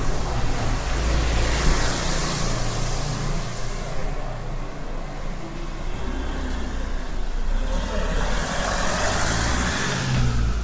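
Two motor vehicles driving past on a city street, each a swell of engine rumble and tyre hiss that rises and fades, the first about two seconds in and the second near the end.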